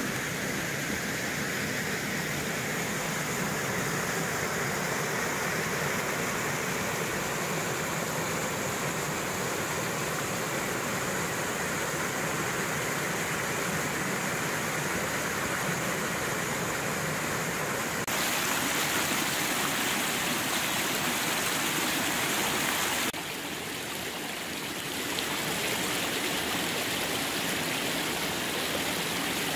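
Shallow rocky stream running over stones and small cascades: a steady rush of water. The level shifts abruptly twice, louder and brighter about two-thirds of the way in, then briefly softer before it rises again.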